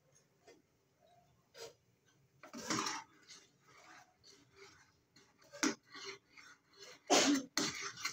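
A person coughing several times in short bursts, loudest about three seconds in and again near seven seconds in, with lighter knocks in between.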